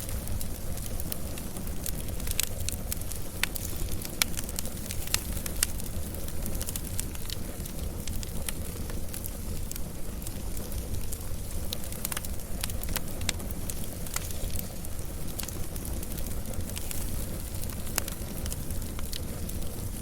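Wood fire burning with a steady low rumble and many sharp, irregular crackles and pops.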